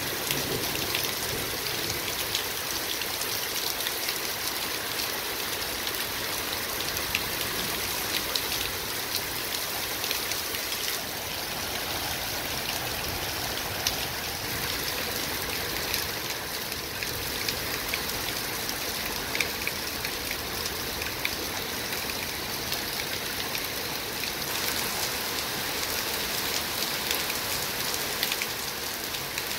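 Heavy rain pouring steadily onto paving stones, with scattered sharper ticks of nearer drops striking hard surfaces.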